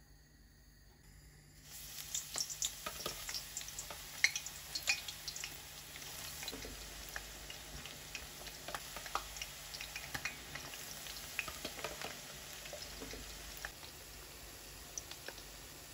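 Brinjal (eggplant) strips deep-frying in hot oil in a wok. It starts quiet, then a sizzle comes in suddenly as they go in, thick with sharp crackles and pops that thin out into a steadier sizzle.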